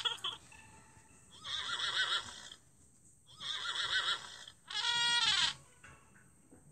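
Cartoon animal-call sound effects from an animated storybook app: two calls with a wavering pitch, then a call that falls steeply in pitch near the end.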